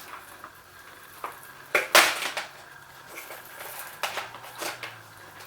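Clicks, rustles and rattles of a loose wiring harness being handled and pulled about, with a sharp knock about two seconds in.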